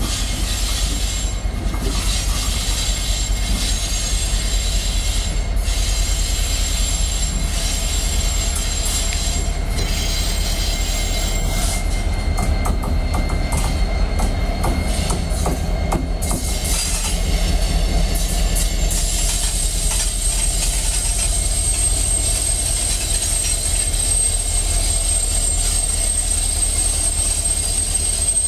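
Union Pacific diesel-electric freight locomotive rolling slowly past at close range: a steady deep engine rumble with the sound of wheels on the rails. A thin, steady high wheel squeal comes in about two-thirds of the way through.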